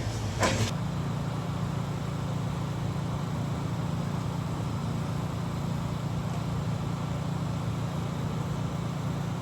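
An engine running steadily at idle, a low even hum, after a brief sound about half a second in.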